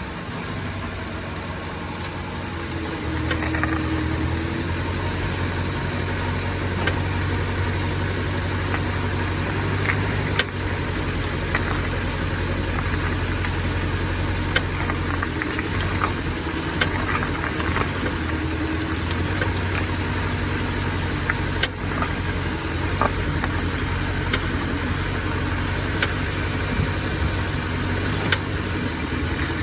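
BMW F16 V8 running slowly, with short, irregular creaking clicks from the right front brake. The creak is the Brembo GT kit's pads shifting against a worn rotor that has a raised lip at its edge.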